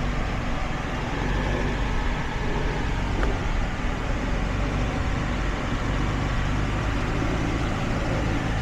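Ford truck engine running as it drives slowly over an off-road trail, with steady low engine hum and tyre and road noise. There is a faint click about three seconds in.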